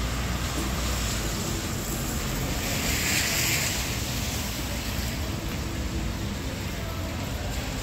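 Wet city street traffic: a steady low rumble under the hiss of tyres on rain-soaked asphalt, swelling and fading about three seconds in as a car passes.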